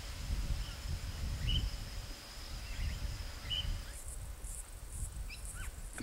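Faint outdoor bush ambience: a steady high insect drone that stops about two-thirds of the way in, a few short, faint bird chirps, and a low wind rumble underneath.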